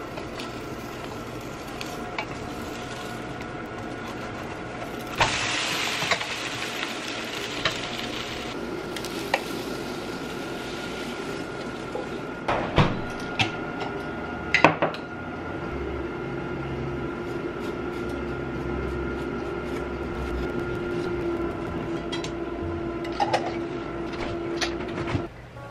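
Pan-frying a chive and seafood pancake in a nonstick wok: wooden spatulas scraping and tapping the pan, a few seconds of frying sizzle about five seconds in, then two sharp knocks as the wok is tipped against a steel plate to slide the pancake out. A steady whine and hum from the stove runs underneath.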